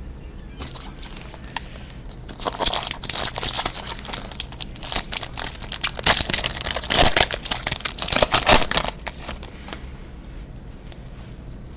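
Foil wrapper of a Topps Platinum football card pack crinkling and tearing as it is ripped open, mixed with the rustle of cards being handled; it dies down about nine seconds in.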